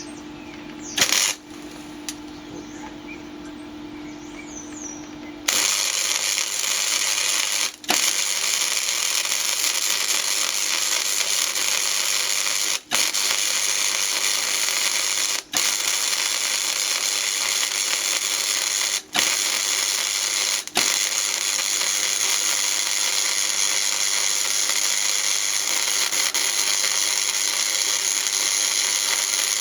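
Electric arc welding on thick steel, the welder set high: a loud, steady crackle and sizzle of the arc that starts about five seconds in and runs with four or five brief breaks. Before it starts there is a quieter steady hum and a single click.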